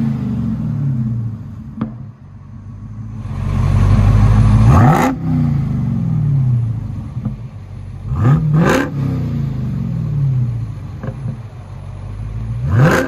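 Dodge Charger Hellcat's 6.2-litre supercharged Hemi V8 idling and revved in three quick blips, each rising sharply and falling back to idle, the second after a low rumble builds. The exhaust keeps the factory X-pipe and mid mufflers with the rear resonators deleted.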